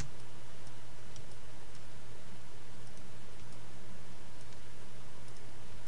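Steady low hum and hiss of background noise, with a few faint, sparse clicks scattered through it.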